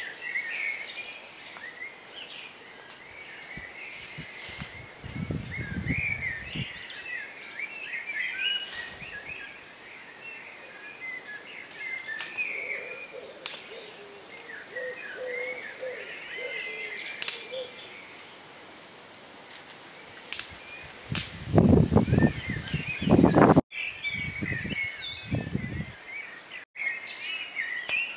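Garden birds singing and chirping continuously, several birds at once. Two stretches of low rumble break in, the louder about three-quarters of the way through.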